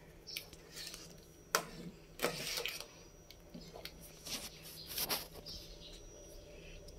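Long metal spoon stirring thick chocolate rice porridge (champorado) in an aluminium pot, giving several short scrapes against the pot, over a faint steady hum.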